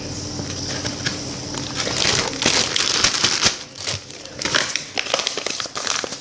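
A bag crinkling and rustling as it is handled, with dense irregular crackles, heaviest from about two seconds in.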